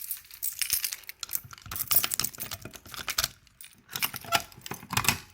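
Light metallic rattling and irregular clicking from a fire alarm pull station being handled and reset after its test activation.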